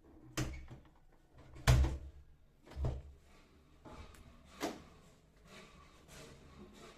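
A few separate knocks and thumps, the loudest about two seconds in, with lighter clatter between them, like things being handled or set down.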